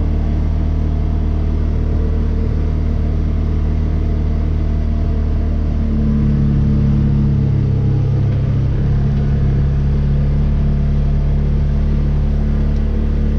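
Engine of a vehicle towing a makeshift drag over a field, running steadily under load; about halfway through it gets a little louder and higher in pitch for a few seconds, then settles back.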